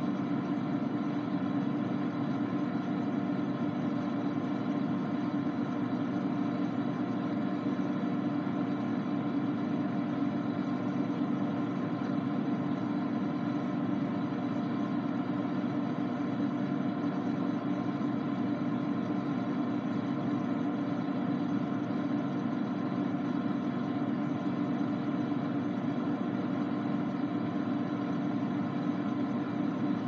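Refrigerator running: a steady low hum that does not change.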